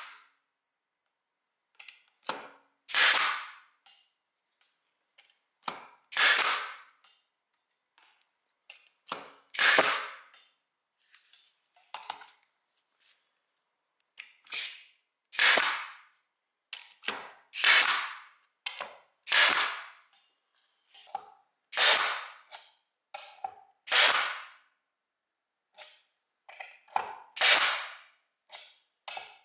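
Parkside PDT 40 G5 pneumatic stapler firing again and again, about nine sharp shots in all at intervals of two to three seconds. Each shot trails off over about half a second, and softer clicks and knocks come between shots.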